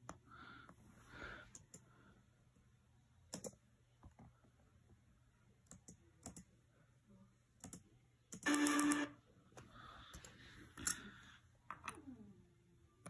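Plastic LEGO bricks clicking and knocking as loose pieces are picked up from the rug and pressed onto the build, in scattered separate clicks. About two-thirds of the way through, a brief loud pitched, buzzy sound lasts under a second.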